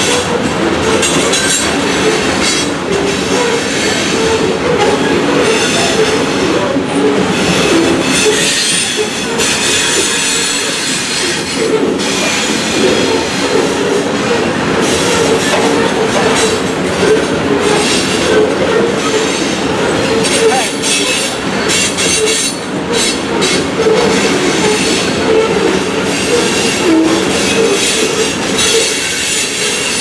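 Loaded coal hopper cars of a freight train rolling past close by: a steady rumble of steel wheels on the rails, with a high squeal from the wheels.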